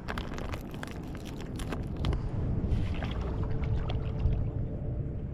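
Wind rumbling on the microphone while water splashes and drips around a kayak, with a cluster of quick sharp splashes in the first two seconds.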